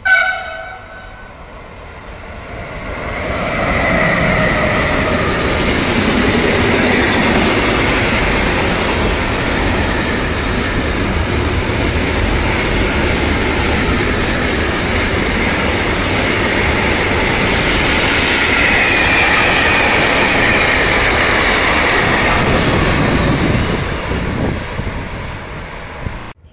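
Electric-hauled intermodal freight train passing close: a short horn blast right at the start, then the noise of the train builds over a few seconds into a steady loud rumble and clatter of the long string of trailer, container and tank wagons, with a high wheel squeal at times. The noise drops away in the last couple of seconds.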